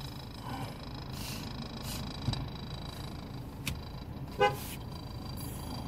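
A car horn gives one short toot about four and a half seconds in, over a low steady hum.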